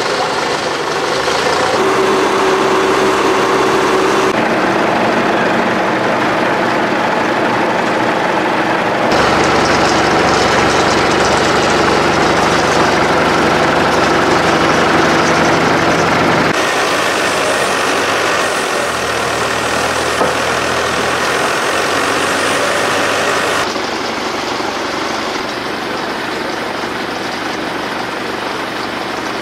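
MAN 160 hp diesel engine of a TAF articulated forestry skidder running steadily, its note jumping to a different engine speed every five to seven seconds.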